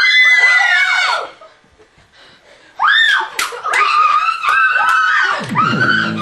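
Several girls screaming in high-pitched shrieks, in two bouts with a pause of about a second and a half between them. Music with guitar comes in near the end.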